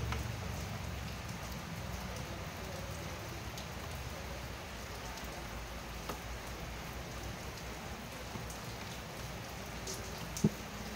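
Steady hiss of rain with a low hum underneath. There is a small click about six seconds in and a sharper click near the end.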